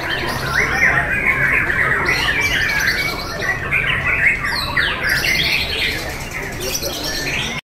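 White-rumped shamas (murai batu) singing, a dense run of rapid, varied chattering and whistled phrases that overlap one another; the sound cuts off suddenly near the end.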